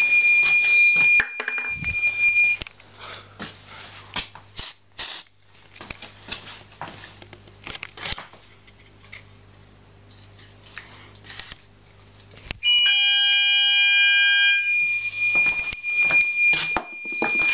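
Fire alarm sounders giving a steady high-pitched tone that cuts off about two and a half seconds in, followed by a quieter stretch of scattered clicks. About twelve seconds in the alarm starts again, loud, with several tones sounding at once for about two seconds before settling back to the single steady high tone.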